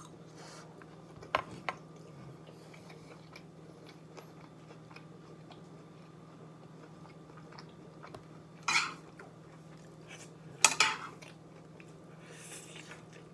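Chewing a mouthful of food, with a metal spoon clicking twice against a dish about a second in and two louder clatters later, the second the loudest, over a steady low hum.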